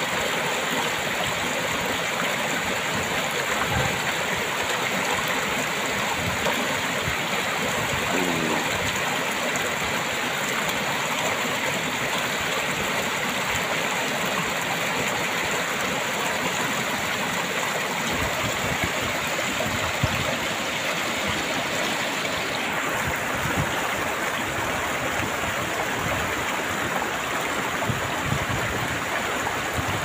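Shallow stream water rushing over rocks in a steady, even flow, with continuous splashing and gurgling.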